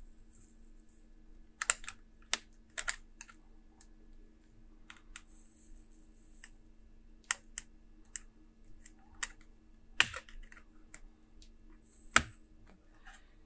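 Sharp plastic clicks and snaps, a dozen or so at uneven intervals, as a laptop keyboard's heat-staked plastic rivets are melted with a soldering iron and prised free with a plastic spudger, with a few short hisses in between over a faint steady hum.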